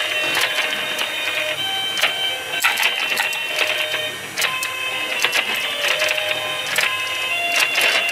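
Sega Toys Anpanman fishing game running: a steady mechanical whir and hum from the toy, under a simple electronic tune of held notes, with frequent sharp plastic clicks and clacks as the toy rod and plastic fish knock together.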